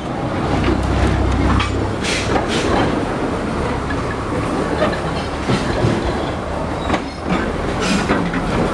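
Narrow-gauge railway carriages rolling past at close range: a steady rumble of wheels on rails, with sharp clacks as the wheels cross rail joints, in clusters about two seconds in and again near the end.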